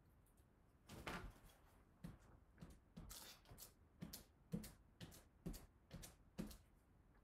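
A trowel scraping over wet metallic paint on a wall, in a run of short, faint strokes, about two a second, starting about a second in.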